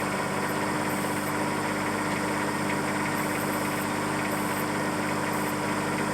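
Mini excavator's diesel engine running steadily with a constant hum.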